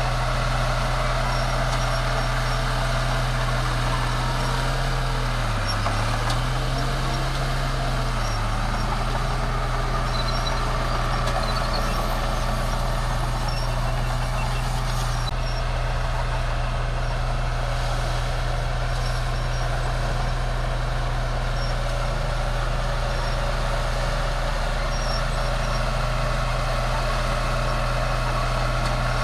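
Bulldozer's diesel engine running steadily under work. Its pitch sags briefly twice, about six and eight seconds in, as it takes load, then recovers.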